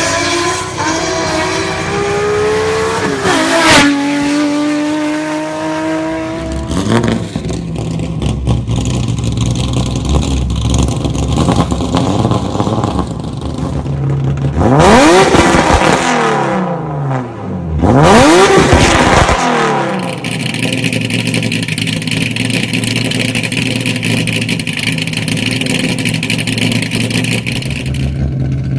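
Nissan 350Z's VQ35DE V6 engine: first a car accelerating with its pitch climbing, then a steady idle, then two quick free revs about halfway through, each rising and falling back, before it settles into a steady idle again.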